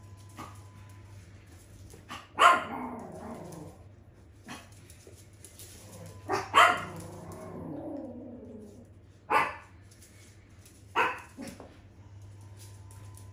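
Small dogs playing tug-of-war with a toy: four sharp barks, the loudest about two and a half and six and a half seconds in, with low wavering play growls after the first two.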